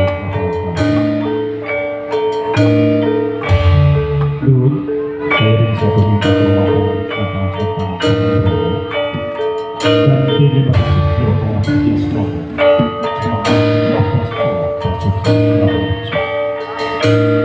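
Javanese gamelan music played live: bronze metallophones and gongs ringing out repeating melodic notes over low, steady drum strokes.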